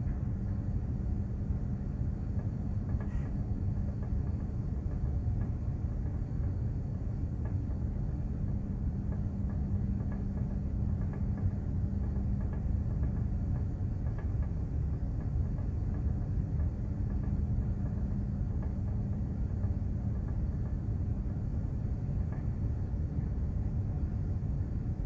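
Steady low rumble of a container ship under way at sea, with a steady machinery hum over it.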